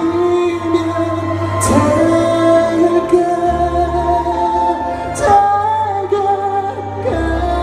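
Live song performance with singing: held notes in harmony over a steady bass line.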